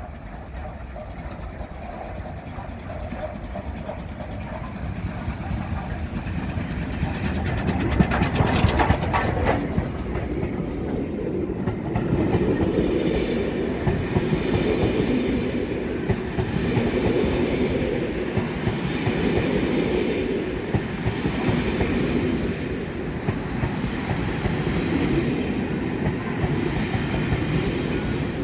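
LMS Royal Scot class steam locomotive 46100 arriving with its train, growing louder as it comes in and loudest as it passes about eight seconds in. Its coaches then roll past with a steady rumble that swells and fades about every two and a half seconds.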